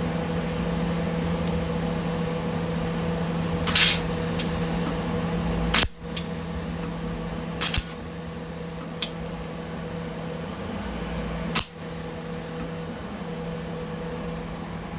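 Eastwood MIG 175 welder humming steadily, with a few sharp clicks and short crackling bursts.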